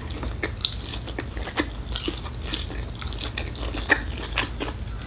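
A person eating fried instant noodles up close: chewing and sucking in strands of noodle, with many small wet mouth clicks, over a steady low hum.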